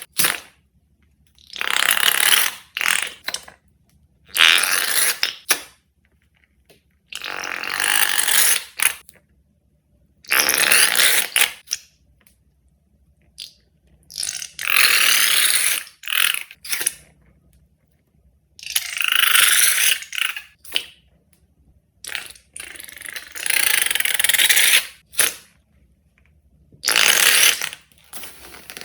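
Balloons and slime being handled: about eight separate bursts of crackling, rasping noise, each a second or two long, with silent gaps between them.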